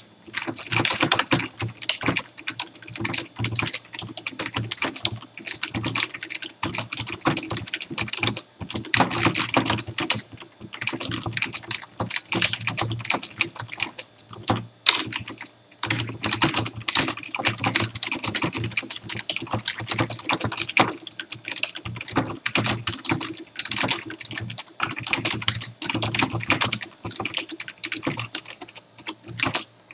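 Computer keyboard being typed on continuously in fast runs of key clicks, broken by short pauses, with one sharper key strike about halfway through.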